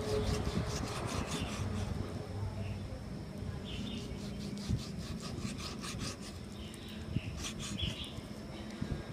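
A large chef's knife slicing raw beef into thin strips on a wooden cutting board. The blade scrapes and taps the board in repeated strokes, coming in bursts with short pauses between them.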